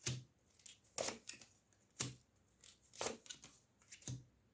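Tarot cards being handled and laid on a table: five sharp taps about a second apart, with lighter card clicks between them.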